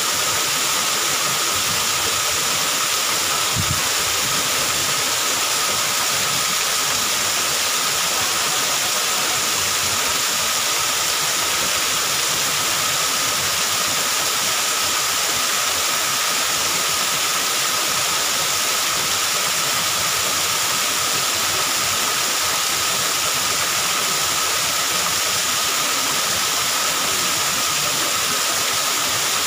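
Waterfall pouring down rockwork into a pool: a steady, even rush of falling and splashing water.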